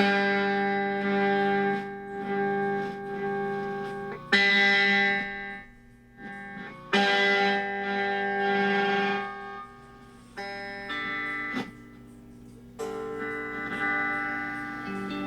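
Hofner 459 VTZ electric guitar strummed through an amplifier with its built-in treble boost and fuzz switched on, single chords struck every few seconds and left to ring out, the later ones softer. The repaired treble boost circuit is passing sound rather than cutting it out.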